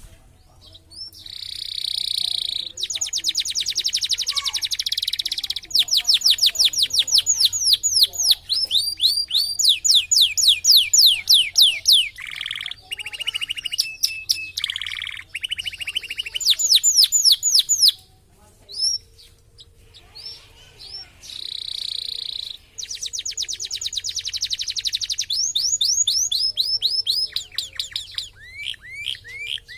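Domestic canary singing a long, varied song of fast trills and quick runs of repeated down-sweeping notes, with a short pause about two-thirds of the way through.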